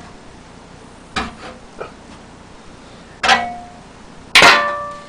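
Metal clanging: four separate knocks, the last two loudest, each of those ringing on briefly.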